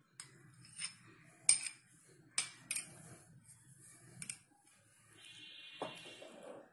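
Several light clicks and clinks spread over the first few seconds, then near the end a soft rubbing as a hand starts working oil into flour in a glass bowl, with one small knock.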